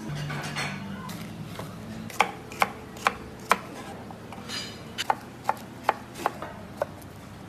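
Knife chopping peppers on a wooden cutting board: about ten sharp knocks, each with a brief ring, in two runs starting about two seconds in.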